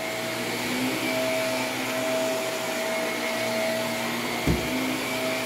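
Upright vacuum cleaner running steadily on carpet, a constant whine over a rushing hum as it picks up soil. A brief low bump about four and a half seconds in.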